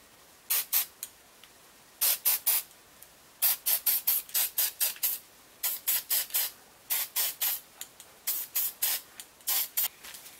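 Rust-Oleum aerosol spray paint can sprayed in many short, quick spurts of hiss, fired in clusters of two to about eight with short pauses between.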